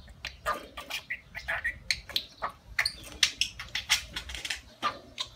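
Budgerigar chattering: a fast, uneven run of short clicks and squeaky chirps.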